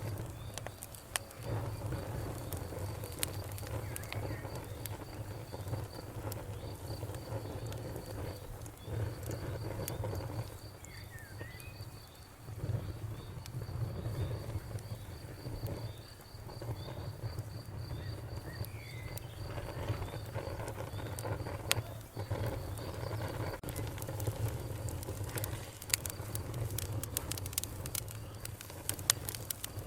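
Campfire burning with a low steady rumble and scattered crackles and pops, which come thicker near the end. An insect chirps in a fast, even high-pitched pulse behind it, with a couple of short bird chirps.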